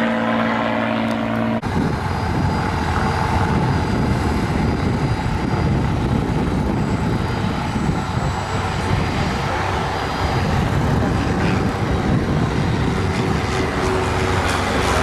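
Light propeller aircraft engine running with a steady pitched hum. About a second and a half in it is abruptly replaced by a rougher, noisier engine rumble that carries on steadily.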